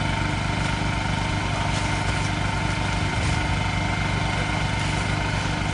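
An engine running steadily at a constant speed, an even low hum with no change in revs.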